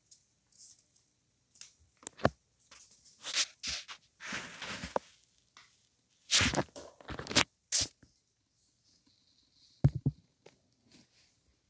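Folded paper boat being handled: short bursts of paper crinkling and rustling, with a few sharp clicks among them and a duller thump near the end.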